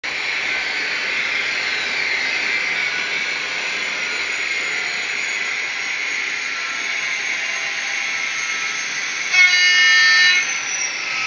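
ESU LokSound sound decoder in an HO-scale model of SNCF diesel locomotive 67338, playing a steady hissing diesel running sound through its small onboard speaker. About nine seconds in it sounds one note of the two-tone horn, held for about a second.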